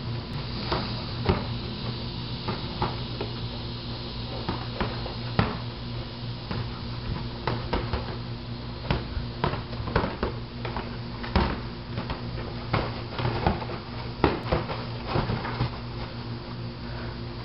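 Irregular sharp slaps and thuds of boxing gloves landing on gloves and bodies during sparring, coming more often in the second half, over a steady mechanical hum.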